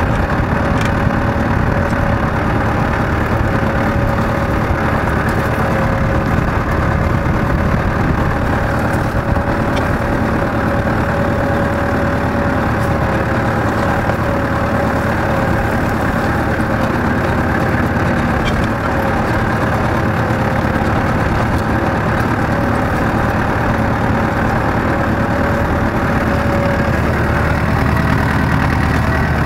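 Tractor engine running steadily while it pulls a moldboard plough through dry soil, heard close up from on the tractor, with a constant tone held over the engine note.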